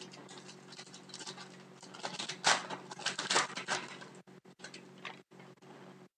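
Trading cards and a shiny pack wrapper being handled, with rustling, crinkling and sliding and a cluster of sharper crinkles between about two and four seconds in, over a faint steady hum.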